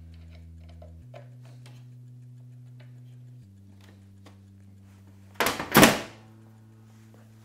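A loud scraping clatter lasting about half a second, a little past the middle, as the washer-dryer's white casing panel is pushed back into place. Behind it runs background music of low held chords that change every couple of seconds, with a light ticking beat.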